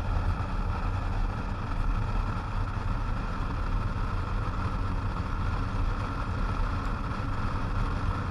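2005 Jeep Grand Cherokee driving on a snow-covered road, a steady rumble of running gear and road noise picked up from outside the vehicle beside the passenger mirror.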